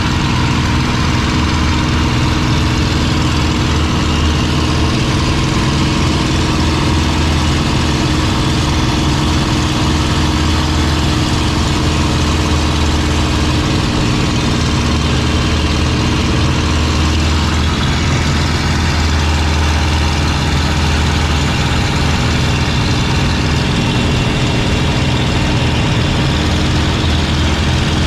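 P-51D Mustang's Packard Merlin V-12 engine running steadily in flight, heard from inside the cockpit, with an even rush of airflow over the canopy.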